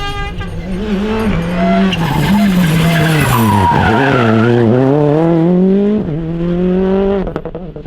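Rally car engine revving hard through its gears, the note dipping sharply about halfway in and then climbing steadily again. Near the end the engine note drops away into a rattle of sharp pops.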